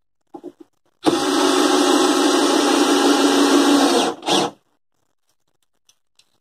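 Cordless drill running steadily for about three seconds as it drives a screw up through a 2x4 into the underside of a wooden porch, then a second short burst to seat it.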